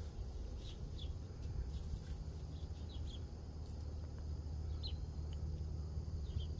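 Outdoor ambience: brief high bird chirps now and then over a steady low rumble.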